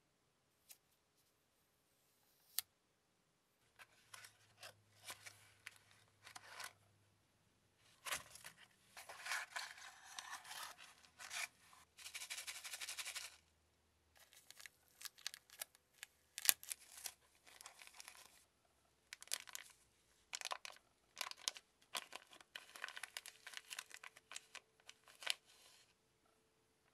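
Clear plastic packaging bags rustling and crinkling in gloved hands, in irregular bursts with a few sharp clicks: small accessories being unwrapped.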